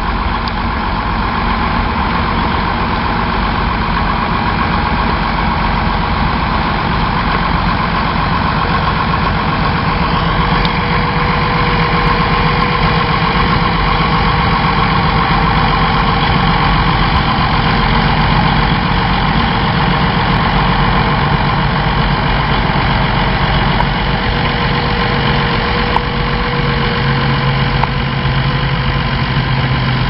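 Tractor diesel engine running steadily under load as it pulls a multi-furrow plough through the soil, its low note growing stronger over the last few seconds.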